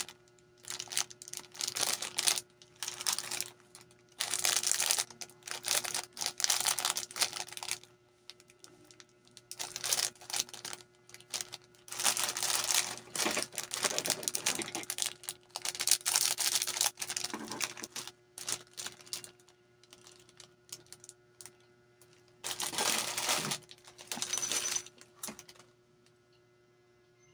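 Clear cellophane snack packets crinkling as they are handled, cut open and emptied. The crackling comes in repeated bursts with short pauses and stops near the end.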